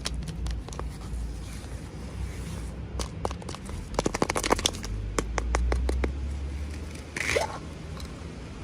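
Toy packaging being handled and opened by hand: scattered clicks and taps, a quick run of clicks about four seconds in, and a short scrape near the end.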